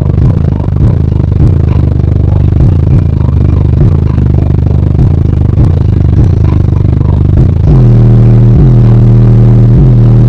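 Bass-heavy music played at extreme level through four 15-inch Team AA / Ascendant Audio subwoofers in a sixth-order bandpass enclosure, heard inside the car's cabin, overloading the microphone, with the car's panels rattling. About eight seconds in, it settles into louder, sustained low bass notes that step up and down in pitch.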